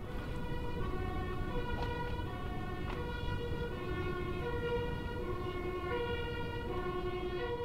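Two-tone emergency vehicle siren, switching between a high and a low note a little more than once a second, over a low steady rush of noise.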